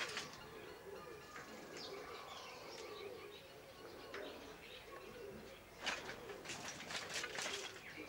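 Birds calling in a poultry yard: a soft, low, wavering coo-like call runs throughout, and about six seconds in comes a burst of sharp, rapid calls, the loudest part.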